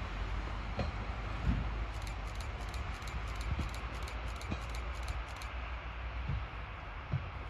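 Asa Kaigan Railway DMV dual-mode vehicle running, a steady rumble with occasional low thumps. About two seconds in, a quick series of sharp ticks, about three a second, runs for three and a half seconds and stops.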